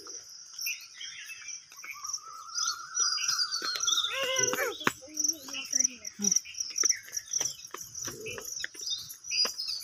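Crickets chirping in a steady, pulsing high trill, with footsteps on the paved path.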